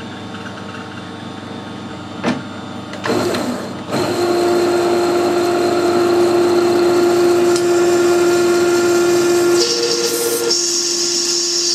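Metal lathe, quiet apart from a couple of knocks, starting up about four seconds in and then running with a steady hum. Near the end the parting-off tool bites into the spinning aluminium pulley, adding a high, hissing cutting sound.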